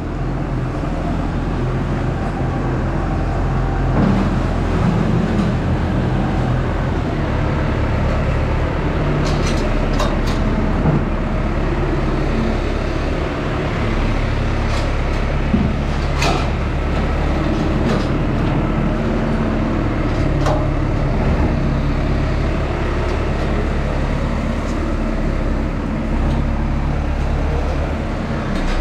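New Holland T5050 tractor's four-cylinder diesel engine running steadily as it pushes feed along the feed alley with its front-loader grab, with a few sharp knocks from the loader along the way.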